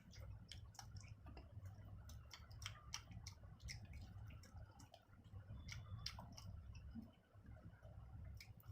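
A person eating with his hands, chewing with many short, irregular wet clicks and smacks, faint over a low steady hum.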